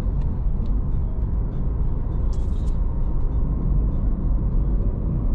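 Steady low rumble of a car driving along a paved road, heard from inside the cabin: engine and tyre noise. A brief high hiss comes about two and a half seconds in.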